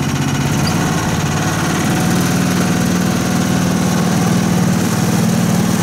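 Karakat all-terrain vehicle's engine running at steady revs, driving through its CVT.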